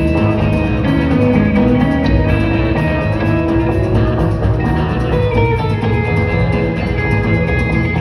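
A live band playing rock music in a concert hall, recorded from the audience: acoustic guitar, keyboard and drum kit, with long held notes.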